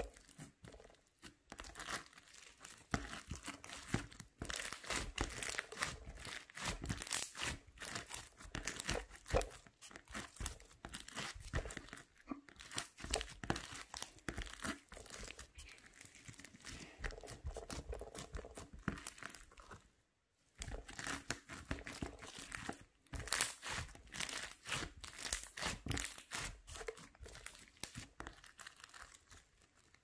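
Slime packed with foam beads being pressed and stretched by hand: a dense run of small sticky crackles and pops, with a couple of short breaks about two-thirds of the way through.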